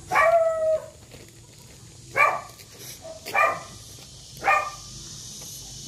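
A dog barking: one longer bark at the start, then three short barks about a second apart.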